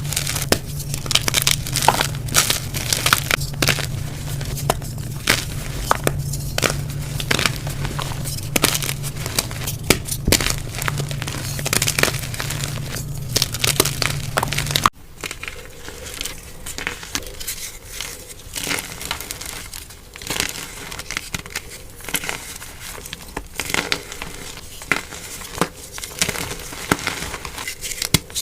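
Dyed gym chalk being crushed and crumbled: a dense, continuous run of crisp crunches and crackles. About halfway through the sound cuts abruptly to a somewhat quieter crumbling with a different background hum.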